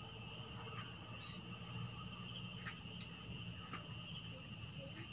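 Steady high chirring of crickets and other night insects, with a few faint ticks.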